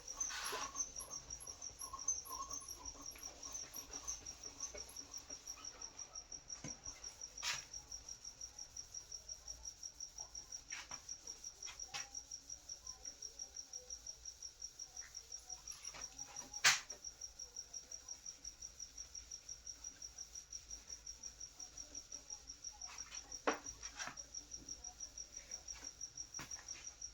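Insect chirping: a steady run of even, high-pitched pulses, with a few sharp clicks over it, the loudest about two-thirds of the way through.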